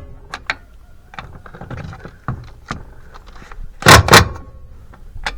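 Power drill with a socket running a wheel lug nut tight in two quick trigger bursts, with small clicks of the socket on the nut around them.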